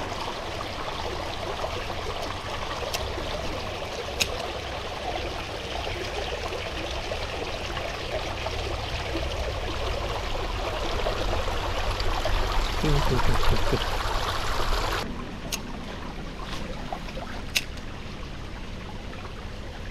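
Water of a small, shallow stream running steadily, a continuous rush, with a few faint clicks. The rush grows a little louder, then drops away about three-quarters through.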